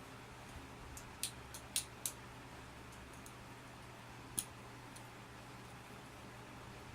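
Balisong (butterfly knife) being flipped: a few sharp metallic clicks of the handles and latch snapping against each other, three in quick succession about a second in and one more past the middle, over a faint steady hum.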